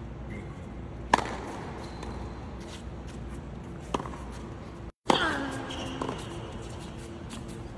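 Tennis ball struck by a racket: three sharp single hits, about a second in, about four seconds in, and a louder one about five seconds in.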